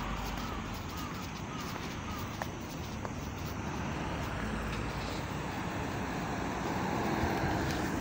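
Wind noise on the microphone over the steady hum of road traffic, with a few faint short chirps in the first two seconds.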